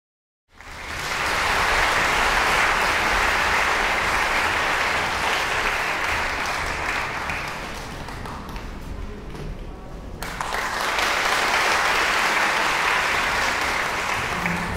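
Audience applauding. The clapping eases off about eight seconds in and swells again about ten seconds in.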